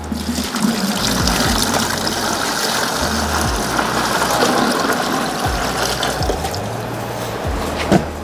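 Water pouring in a steady stream from a large glass jar into a plastic 5-gallon bucket holding water filters, easing off near the end. A short knock comes just before the end.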